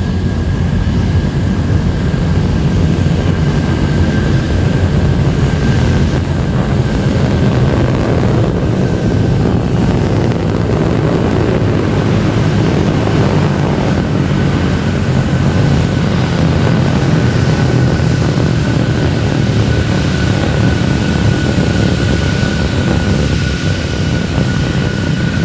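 Terran 1 rocket's first stage, nine methane-oxygen Aeon 1 engines, in a loud, steady, deep rumbling roar during its climb after liftoff.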